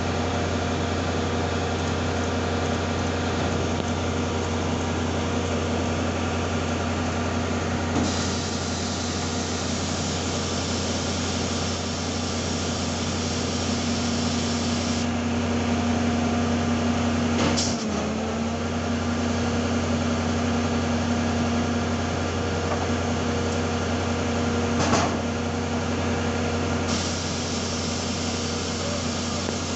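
Large diesel truck engine idling steadily with a low drone, with two brief knocks, one a little past halfway and one near the end.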